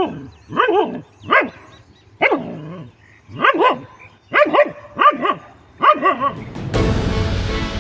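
A dog barking repeatedly at a cobra that has its hood raised: about ten sharp barks, some in quick pairs, each falling in pitch. Background music comes in near the end.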